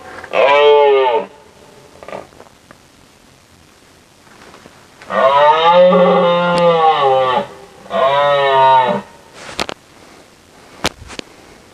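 Recorded moose calls played back: three drawn-out calls whose pitch rises and falls, a short one about half a second in, then a longer one around five seconds in followed closely by a third. Two sharp clicks come near the end.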